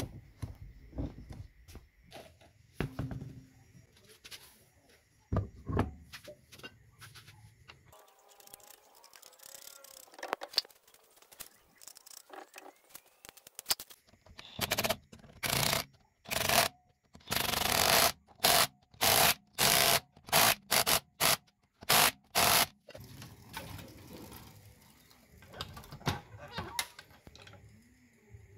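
Cordless impact wrench, a DeWalt XR, firing in a dozen or so short bursts as it runs wheel nuts onto a car's rear wheel studs. Scattered clicks and knocks come before them.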